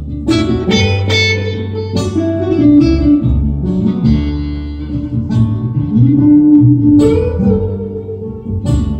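Live acoustic band playing: strummed acoustic guitar over an upright bass, with fresh strums every second or two.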